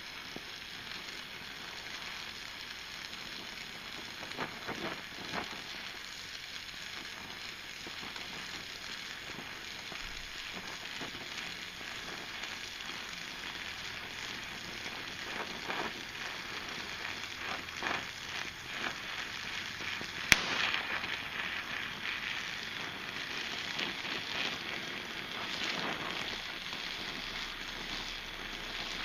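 Oxy-acetylene welding torch flame hissing steadily while butt welding 1/16-inch sheet steel, with scattered crackles from the weld puddle and one sharp pop about two-thirds of the way through.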